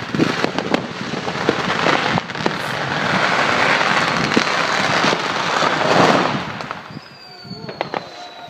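Fireworks going off: a string of sharp firecracker bangs, then a dense rushing hiss that builds over a few seconds and drops away about six seconds in. Near the end a thin whistle falls slowly in pitch.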